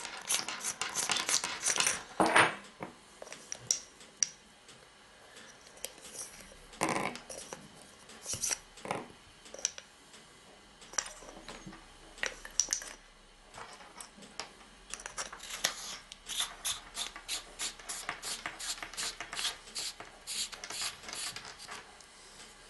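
Handling noise from an aluminium flashlight being opened and loaded with two rechargeable cells: scattered clicks, knocks and rattles of the metal cells, the tail cap and a plastic cell tube on a wooden table. The clicks are thickest in the first two seconds and come in quick runs through the last third.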